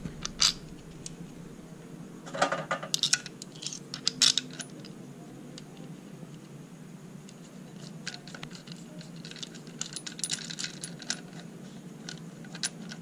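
Light metallic clinks of steel washers and spacers of a crankshaft oil-seal installer tool being handled and slid onto a Vespa crankshaft stub, coming in scattered clusters over a steady low hum.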